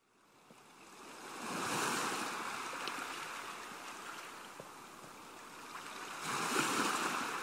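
Ocean surf: waves washing in, fading up from silence and swelling twice, once about two seconds in and again near the end.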